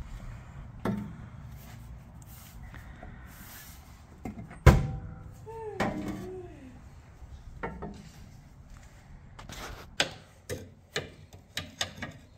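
Hand tools and parts knocking and clicking as a car's underside is worked on: scattered knocks, one loud one a little before halfway, and a quick irregular run of clicks near the end.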